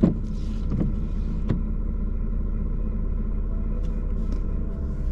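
Steady low rumble of a car heard from inside its cabin, with three sharp knocks in the first second and a half.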